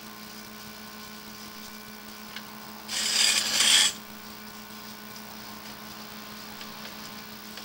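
Steady machine hum, like an idling engine, broken about three seconds in by a loud hiss that lasts about a second.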